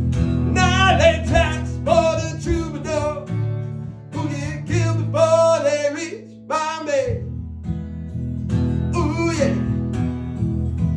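A singer performing a song to their own acoustic guitar: strummed chords held underneath a sung melody, with the guitar thinning out briefly a little past the middle.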